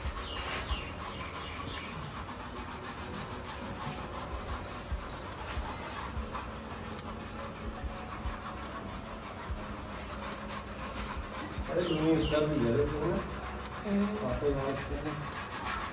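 A horse's coat rubbed and scratched by hand: a steady dry rubbing rustle. A few short pitched sounds come in about twelve seconds in and again near the end.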